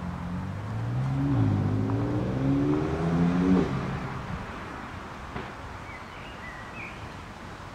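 A motor vehicle engine speeding up. Its pitch rises, drops once and rises again, then it fades away after about four seconds.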